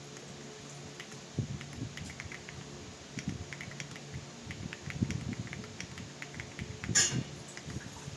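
Typing on an Akko 5075S mechanical keyboard with pre-lubed Akko Creamy Blue Pro switches and OSA-profile PBT keycaps: a steady, uneven run of key clacks, with one louder clack about seven seconds in.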